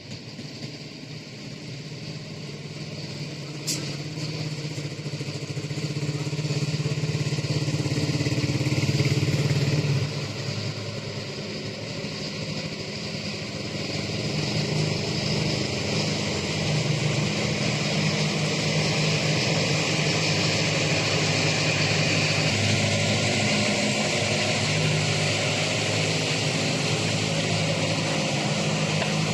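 Backhoe loader's diesel engine running, its pitch shifting up and down as it works. It grows louder over the first several seconds, drops back about ten seconds in, then builds again and holds, with a single sharp click about four seconds in.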